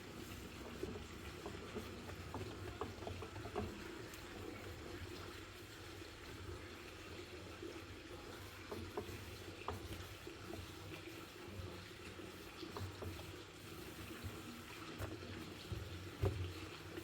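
Water running steadily, with a low hum and scattered light clicks and knocks, one louder knock near the end.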